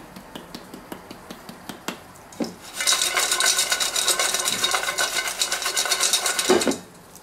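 Fries tossed in a stainless steel bowl: light ticking of a spice shaker, then a knock as the bowl is lifted and about four seconds of dense rattling and scraping of fries against the metal. A knock near the end as the bowl is set down, and the rattling stops.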